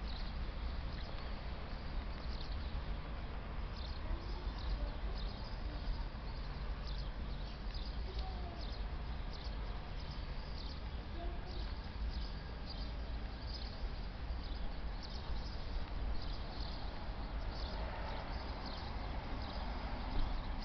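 Outdoor ambience: a steady low rumble under short high-pitched chirps repeating irregularly, about two or three a second.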